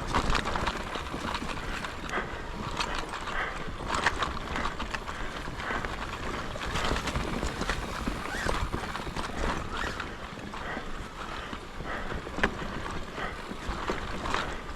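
Mountain bike rolling over a rough, rooty dirt trail: the tyres crunch and the frame and parts rattle with irregular clicks and knocks over a steady low rumble.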